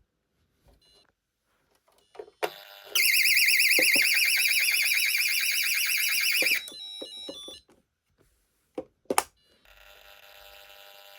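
Intruder alarm sounder on a Pyronix Paragon Super system, sounding a loud, fast-warbling high tone for about three and a half seconds before cutting off, on a panel the owner says is faulty. Short clicks come before and after the tone, and a faint steady hum of several tones starts near the end.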